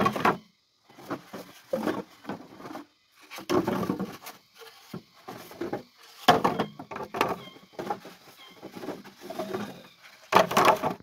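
Irregular knocking and rustling, about a dozen short bursts of under a second each, typical of hand work with wood or brush. Faint high chirps sound in the background.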